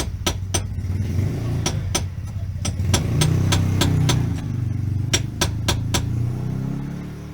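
BMW E36 engine running, its pitch and loudness rising a little about three seconds in and settling back near the end, with sharp clicks scattered throughout.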